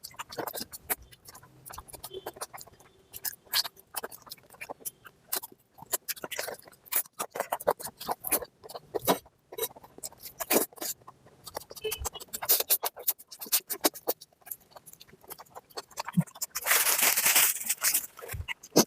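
Close-miked eating sounds: wet chewing and lip-smacking on oily mutton fat curry and rice, a dense run of irregular short clicks. A louder noisy stretch of about a second comes near the end.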